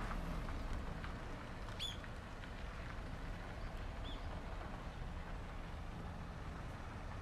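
Outdoor ambience: a steady low rumble with two short, high bird chirps, one about two seconds in and another about four seconds in.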